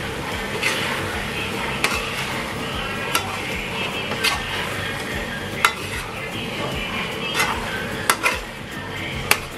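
Metal spatula stirring chicken, potato and carrot chunks in a metal wok, the food sizzling steadily while the spatula clinks and scrapes against the pan at irregular moments, about once a second.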